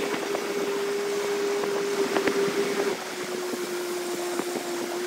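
Small boat's outboard motor running at a steady pitch, easing off slightly about three seconds in, with water and wind noise around it.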